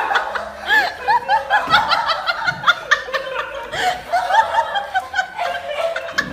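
A person laughing, a quick run of short high-pitched laughs.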